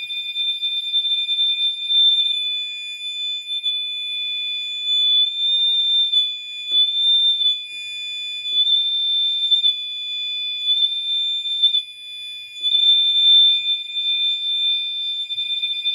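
Gentex Commander 3 and Gentex GX91 mini horn fire alarm horns sounding together on continuous tone, very high-pitched: a steady electronic blare of two pitches, the Commander 3 set to 2400 Hz and the higher one wavering slightly. The loudness dips briefly about three quarters of the way through.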